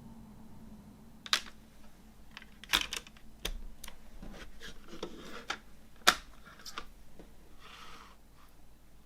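Sharp plastic clicks and taps from a CD case being handled, about half a dozen in all, the loudest a little after six seconds, with soft rustling of packaging in between.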